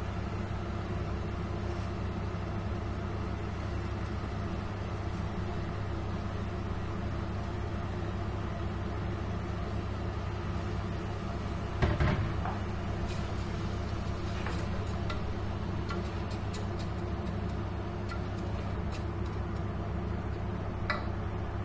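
Steady low machine hum from a kitchen appliance, with one sharp knock about halfway through and a few light clicks of kitchenware being handled.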